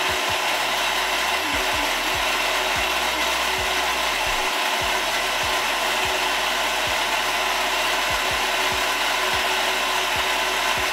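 Oster mini food chopper running steadily without a break, its motor and blade whirring as it blends a cilantro crema.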